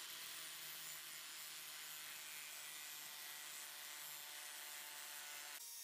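Angle grinder running with its disc grinding into half-inch square steel bar stock, a faint steady grinding whine, cutting a recess for a round carbide cutter.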